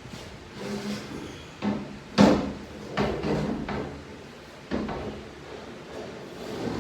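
Metal parts and tools of a 6HP21 automatic transmission clunking and knocking as it is taken apart on a workbench: a series of separate knocks, the loudest about two seconds in.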